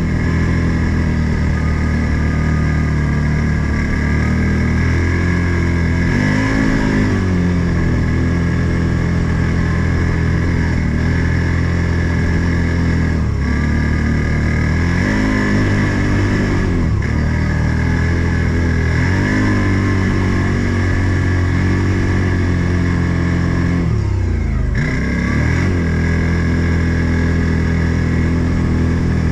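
Odes 800 off-road vehicle's engine running under way, its pitch repeatedly dropping and climbing again as the throttle is eased and reapplied, with a steady high whine alongside.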